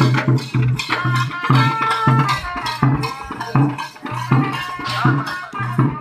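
Traditional procession drumming for a Kawadi dance: hand drums beating a quick, steady rhythm of about three strokes a second, with a higher pitched melody held over it.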